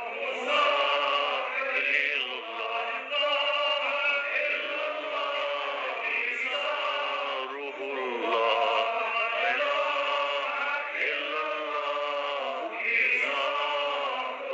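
A man reciting a naat: a single male voice chanting long drawn-out notes that bend up and down, with no instruments, pausing briefly between phrases several times.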